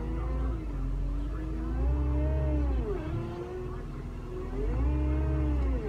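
Cat 259D compact track loader's diesel engine running and revving up twice, pitch rising and falling back each time, as it strains against tracks frozen to the ground.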